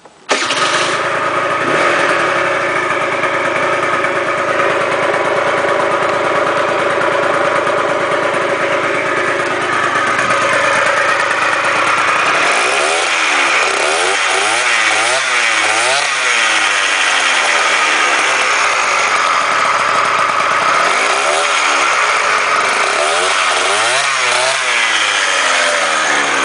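Gilera DNA's two-stroke engine, bored out to 70 cc with a Stage6 kit and sport exhaust, starts suddenly and runs steadily. From about halfway it is revved up and down repeatedly, in two bouts of rising and falling revs.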